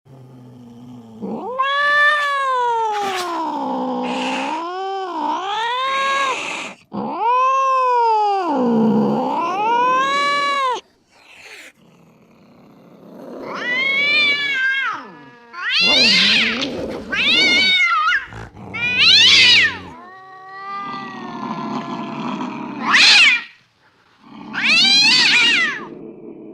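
Domestic cat yowling (caterwauling): two long, wavering yowls that rise and fall in pitch, then after a short pause a run of about five shorter yowls, some pitched higher.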